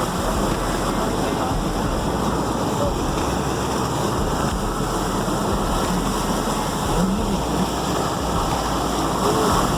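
Steady rushing noise of heavy rain and running water.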